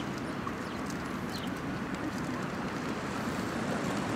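Steady city ambience: a continuous hum of distant road traffic.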